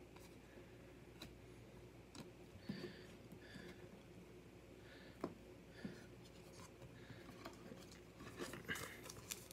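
Faint soft sliding and light taps of baseball trading cards being handled and laid down, a few small scattered clicks.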